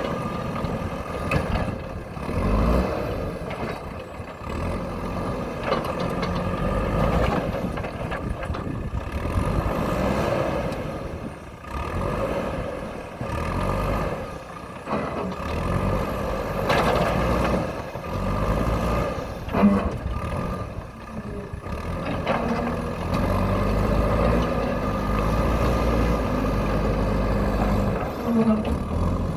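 JCB backhoe loader's diesel engine working under load, its pitch rising and falling again and again, with a few sharp knocks.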